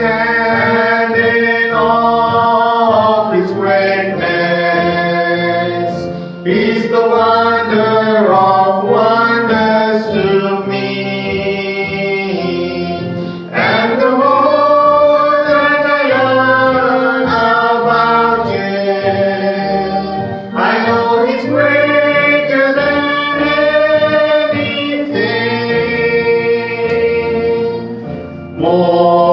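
A man and a boy singing a worship hymn together, in long sung lines with short breaks between them.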